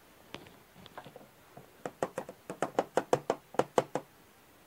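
Light, sharp tapping clicks from a hand-held NOCH Grass Master electrostatic flock applicator being shaken and tapped to sift the charged flocking fibres out of its hopper. The clicks are a few scattered ones at first, then a quick run of about five a second from about two seconds in.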